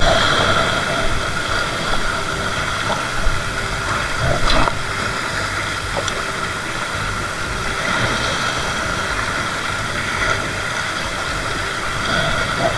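Steady wind and choppy sea water at a rocky shore, with a faint steady mechanical hum running under it.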